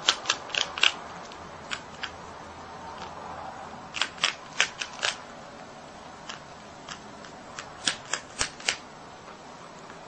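A marmot crunching a hard biscuit: crisp crunches in quick runs of four or five, right at the start, about four seconds in and about eight seconds in, with a few single crunches between, over a faint steady hiss.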